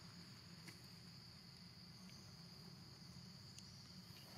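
Near silence with a faint, steady high-pitched insect chirring, such as crickets, and a couple of faint ticks.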